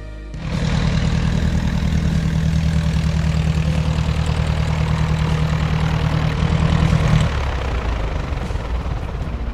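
Engine and propeller of a light airplane, the Luscombe 8A's four-cylinder Continental A-65, running loud with a rapid low pulsing. It cuts in suddenly, is loudest about seven seconds in, then drops lower and fades somewhat.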